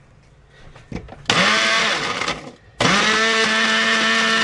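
Small electric spice grinder with a clear dome lid grinding dried jalapeño peppers into powder. It runs in two pulses: a short one about a second in, then after a brief pause a longer one, each spinning up to a steady whine.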